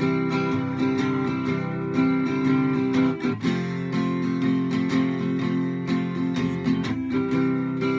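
Strummed acoustic guitar playing a steady rhythm in an instrumental break of the song, with a brief break in the strumming about three seconds in.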